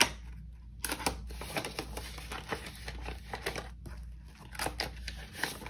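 Paper banknotes being handled and counted by hand: a quick run of short paper rustles and flicks.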